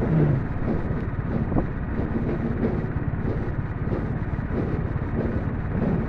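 A motor vehicle running steadily, its engine and road noise heard from on board as it travels along a dirt road.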